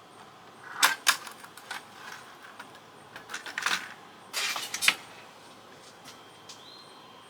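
Small sharp clicks and scrapes of a tool working a tiny push-button switch apart, in three short bursts about a second, three and a half seconds and four and a half seconds in.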